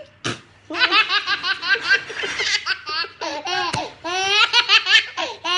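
A baby laughing in quick runs of high-pitched laughs, with a short break about halfway through before the laughter picks up again.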